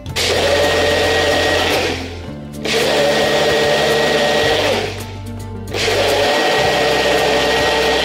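Personal bullet-style blender run in three pulses of about two seconds each, its motor and blades whirring through a watery mixture.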